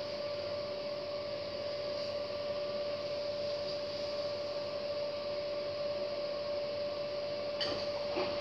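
Hotpoint front-loading washing machine running with a steady hum at the changeover from its wash to the first rinse. Near the end come a few short knocks as the drum starts turning the laundry.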